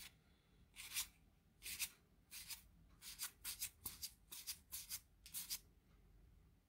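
Magic: The Gathering cards sliding against each other as they are flicked from one hand to the other one at a time: about a dozen short, soft swishes, quickening in the middle and stopping a little before the end.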